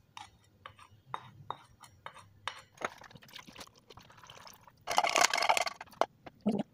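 A spatula tapping and scraping against a glass bowl in a string of light clinks as wet batter is scraped out. About five seconds in, a loud pouring rush lasts about a second.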